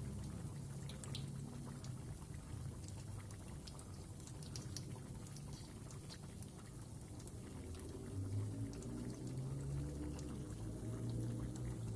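Batter-coated tofu frying in hot oil: a steady sizzle with scattered crackles and pops, over a low rumble.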